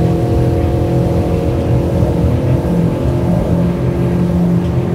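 Mercury 150 Pro XS outboard motor running at a steady pitch.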